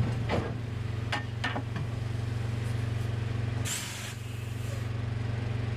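Heavy diesel engine idling steadily, with a few light knocks in the first two seconds and a hiss lasting about a second, starting about four seconds in.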